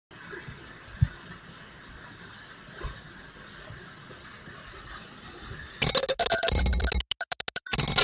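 Waterfall rushing, a steady hiss of falling water, with a brief low thump about a second in. About six seconds in it cuts abruptly to loud, choppy intro music.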